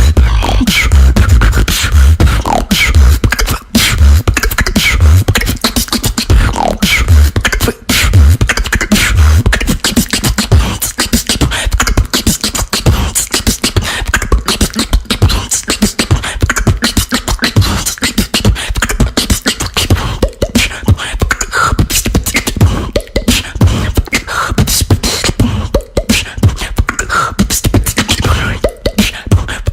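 Solo beatboxing: a fast, dense stream of vocal kick, snare and hi-hat sounds, with heavy bass kicks in the first eight seconds or so.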